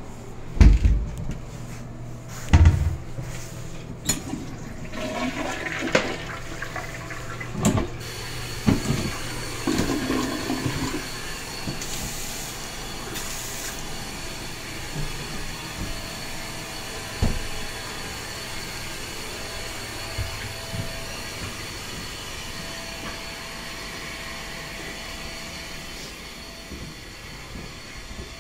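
Two loud knocks in the first few seconds, then a toilet flushing: a rush of water around eight to ten seconds in, followed by the steady hiss of the tank refilling, with a thin whistle from the fill valve.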